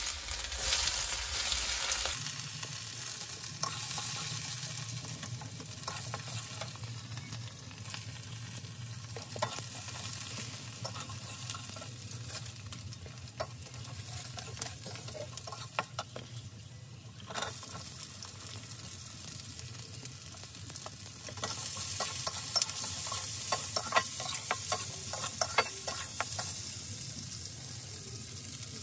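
Chopped garlic sizzling in hot oil in a wok (kadhai), stirred and scraped with a metal spatula, with frequent small clicks. About 21 seconds in, the sizzle grows louder, as chopped onions go into the oil.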